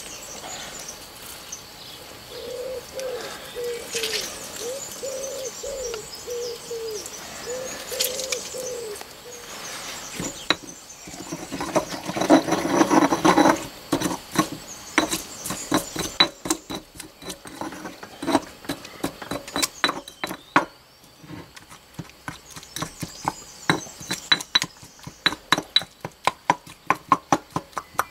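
Granite pestle grinding and pounding a spice paste in a granite mortar: a loud grinding spell about twelve seconds in, then rapid, regular strikes, two or three a second. Before the pounding starts, a bird gives a low, wavering call over and over for several seconds.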